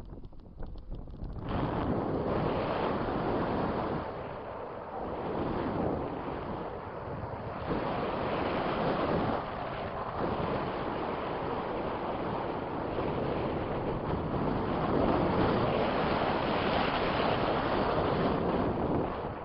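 Strong wind buffeting the microphone: a rushing roar that rises and falls with the gusts, nearly dropping out for a moment at the start.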